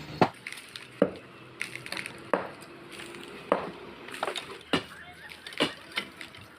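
Sharp knocks of hand tools striking masonry during demolition, irregular, about one strong blow a second with lighter knocks between.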